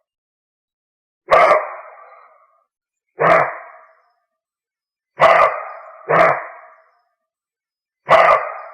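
Dog barking five times in single barks, each trailing off in an echo; two of them come close together about five to six seconds in.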